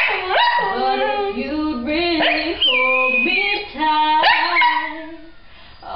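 A dog howling in long pitched notes that slide up and down, singing along with a person's singing; the howls fade near the end.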